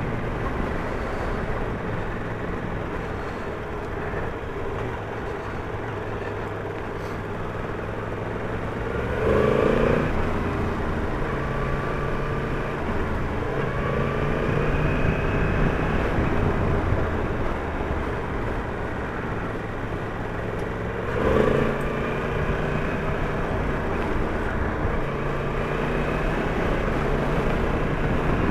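Yamaha MT-10's inline-four engine running as the motorcycle rides along, its pitch shifting up and down with the throttle, with two brief louder moments about ten seconds in and again after about twenty-one seconds.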